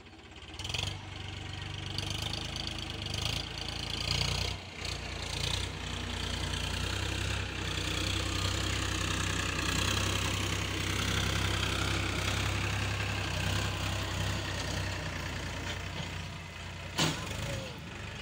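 Farm tractor engine running steadily while working a field with a rotary tiller; it grows louder about a second in. A single sharp click comes near the end.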